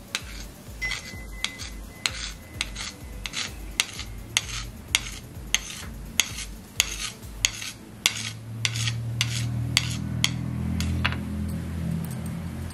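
A knife blade tapping sharply on a hard, oiled worktop, about two taps a second, as it slices stretched parotta dough into strips; the taps stop near the end. A low steady hum rises under them in the second half.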